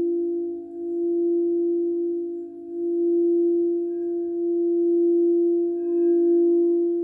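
Frosted crystal singing bowls ringing together in a steady sustained hum, a few tones layered, swelling and fading in slow waves as a mallet is drawn around a rim.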